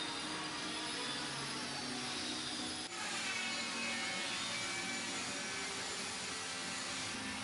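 Steady rushing, whirring noise of a motor-driven blower or vacuum, with a brief dip about three seconds in.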